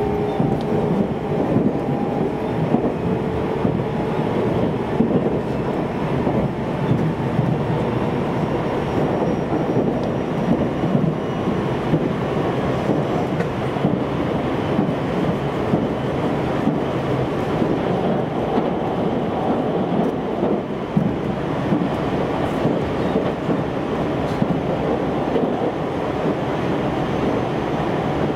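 Interior running noise of a JR Central 373 series electric multiple unit travelling at speed: a steady rumble of wheels on the rails and running gear, heard inside the passenger car.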